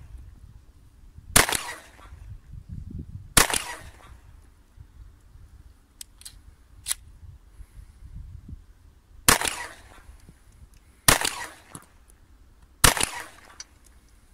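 Glock 43 9 mm subcompact pistol fired five times. There are two shots about two seconds apart, a pause of about six seconds, then three more shots less than two seconds apart.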